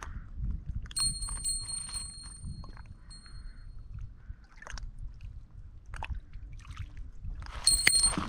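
Small bite-alarm bell on a bottom fishing line jingling, a fish tugging at the bait. It jingles about a second in and rings away over a few seconds, then jingles again near the end.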